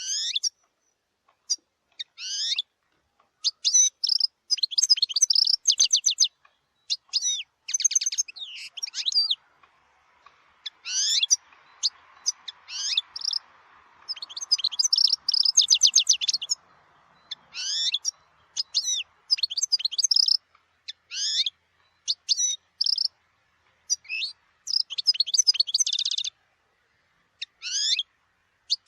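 European goldfinch singing: phrases of quick rising chirps and fast twittering trills, broken by short pauses.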